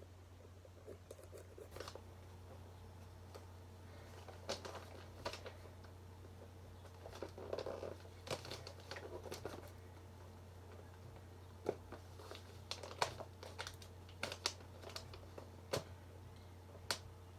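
Hands opening a parcel: packaging crinkling and tearing, with scattered sharp clicks and short scrapes, more frequent in the second half. A steady low hum runs underneath.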